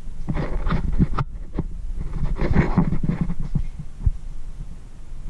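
Muffled knocks and rustling close to the microphone, in two clusters, over a low steady hum.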